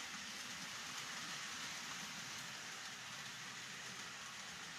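Model passenger train rolling along the layout's track: a steady, even running hiss of the wheels on the rails.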